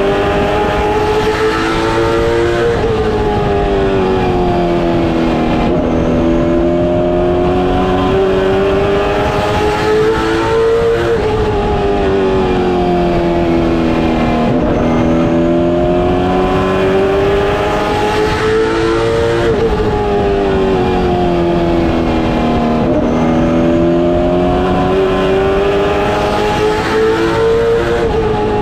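Late model stock car's V8 engine at racing speed, heard from inside the cockpit. Its pitch climbs along each straight and drops sharply as the driver lifts into each turn, four times over.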